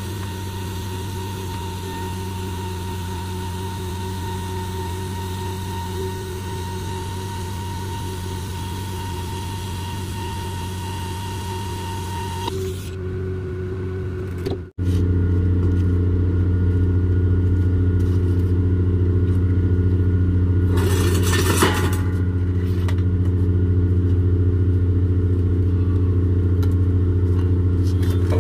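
TIG welding arc hissing on a stainless steel pipe joint over a steady low machine hum; the arc stops a little before halfway. After that the steady hum comes in much louder, with a brief rattle about three quarters of the way through.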